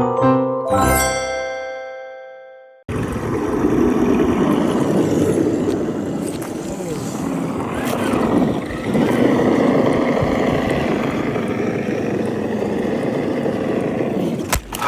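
A short chiming jingle, like mallet bells, dies away over the first three seconds. Then an RC trail truck, a Traxxas TRX-4, runs steadily, its electric motor and drivetrain gears whining, the pitch rising and falling a few times with the throttle.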